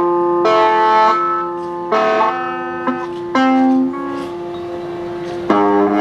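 Guitar played note by note: four plucked notes, each left to ring for a second or more before the next.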